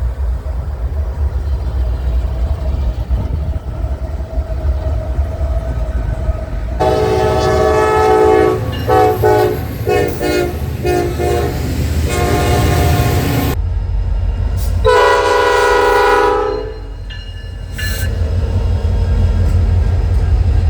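Diesel locomotive's multi-chime air horn played as a horn show: a quick run of short, stuttering blasts and longer notes starting about a third of the way in, then one more long blast a couple of seconds later. Under it runs the steady low rumble of the train.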